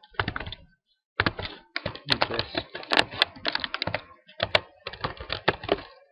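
Typing on a computer keyboard: a short run of key clicks, a brief pause about a second in, then a long, fast run of keystrokes.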